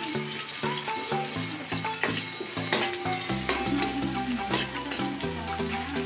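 Garlic and ginger sizzling in hot oil in a wok, with a spatula scraping and tapping the pan as they are stirred. Background music with a melody plays over it, a bass line coming in about halfway.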